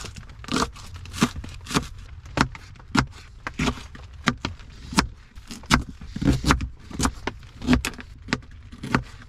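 Scissors snipping through green onions and a jalapeño on a plastic cutting board: sharp snips in a steady rhythm, about one every two-thirds of a second.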